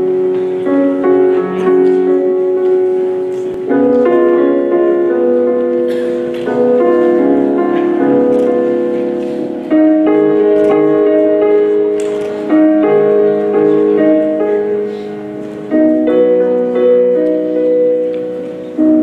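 Piano introduction of a slow ballad backing track. A new chord is struck about every three seconds and rings down between strikes.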